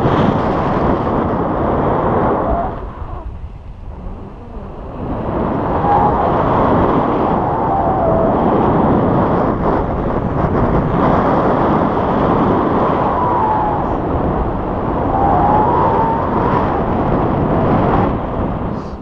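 Wind rushing over an action camera's microphone as a tandem paraglider flies, a loud steady rumble that eases for a couple of seconds about three seconds in, then returns.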